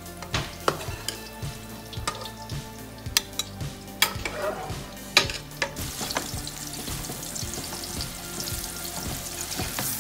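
Sliced onions sizzling as they fry deep brown in hot oil in a stockpot, stirred with a wooden spoon. The sizzle grows louder about six seconds in. Before that, sharp clinks of a metal utensil ring out as boiled chicken pieces are lifted from the stock pot into a glass bowl.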